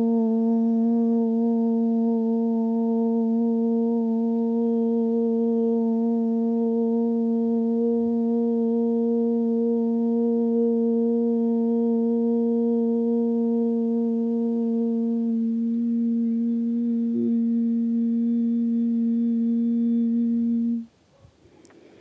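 A woman chanting one long, steady "Om" on a single low pitch, cutting off suddenly about a second before the end.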